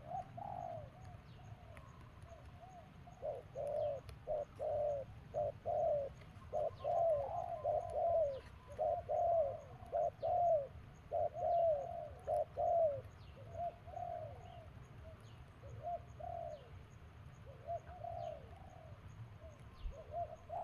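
A bird calling in runs of quick, low, cooing notes, busiest in the middle and thinning out later, with faint high chirps from other birds.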